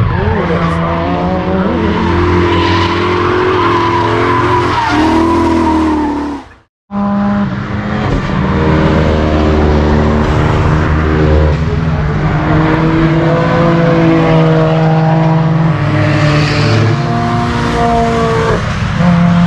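Cars racing round a circuit, their engines revving up and down over a rumble, with tyres squealing. The sound cuts out briefly about seven seconds in, then the engines carry on.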